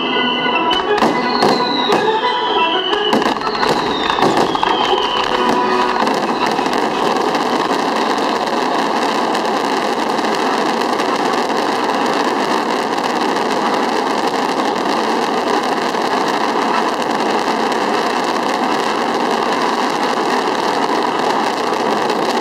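Fireworks display: a few sharp shell bursts in the first seconds with music, then a dense, steady crackle from many exploding stars.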